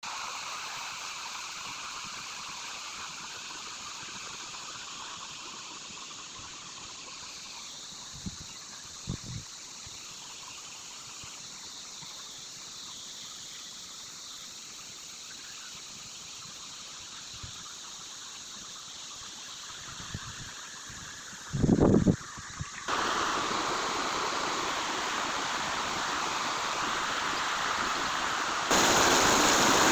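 Flowing water from a mountain stream, a steady rushing that jumps abruptly louder twice near the end. About two-thirds through, a brief louder sound rises over it.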